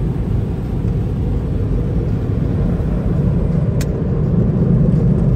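Automatic car wash machinery running, heard as a steady low rumble through the closed car's cabin. It swells a little near the end and has one short click partway through.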